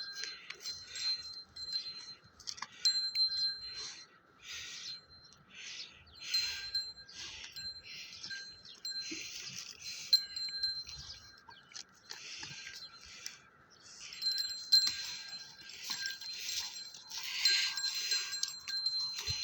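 Small metal bells on cattle jingling in repeated shakes, about two a second, with a steady ringing tone underneath.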